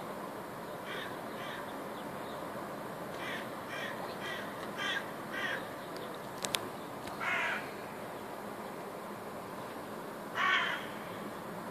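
Crow cawing: a run of short caws at about two a second, then two longer caws, the last near the end the loudest. Two sharp clicks sound about halfway through, over steady background noise.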